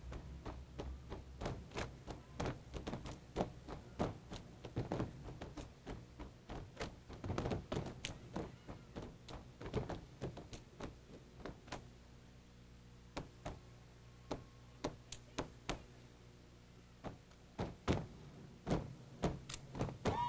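Step team stepping without music: a fast, uneven run of stomps on a wooden stage floor mixed with claps and body slaps, sparser and quieter for a few seconds midway, then picking up again near the end.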